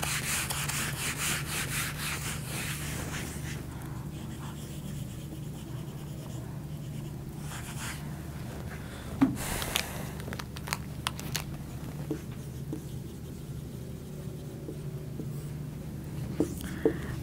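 Whiteboard duster rubbing across the board, loudest in the first few seconds, then fainter rubbing and a few short squeaks and taps of a marker writing on the board.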